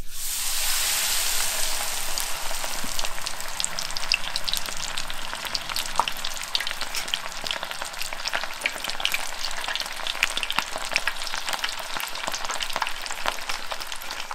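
Battered shrimp deep-frying in hot oil for tempura: a steady, loud sizzle full of sharp crackling pops, starting abruptly as the shrimp go into the oil and cutting off at the end.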